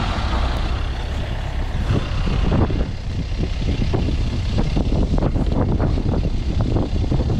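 Ford Transit van's engine idling steadily, a loud low rumble, with irregular crackles over it.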